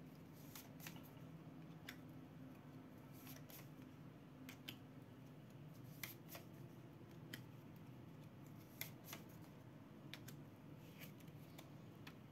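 Near silence: room tone with a low steady hum and about a dozen faint, irregular small clicks.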